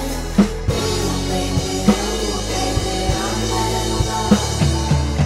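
A drum kit played along to a recorded slow rock song: snare, tom and bass drum hits over the track's sustained guitar and voice.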